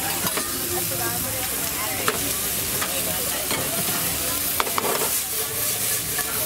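Chicken and vegetables sizzling steadily in a hot nonstick frying pan over a gas burner as they are stir-fried, with the slotted spatula scraping and knocking against the pan a few times.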